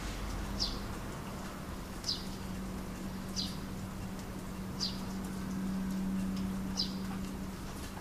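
A small bird repeating a short, high, falling chirp five times, about every one and a half seconds, over the light hiss of rain that has eased off and a steady low hum.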